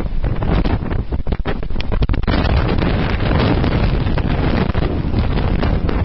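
Strong blizzard wind blowing hard against the microphone, a loud, steady rush with heavy low buffeting. Crackling gust hits in the first two seconds give way to a smoother rush.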